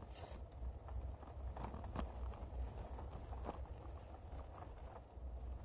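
A puppy's claws clicking irregularly on a hard floor, with a short hiss at the very start, over a steady low rumble.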